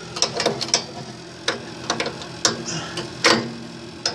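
Socket ratchet working a bolt on a snowblower's metal auger housing: irregular metallic clicks and clinks, about a dozen, over a faint low steady hum.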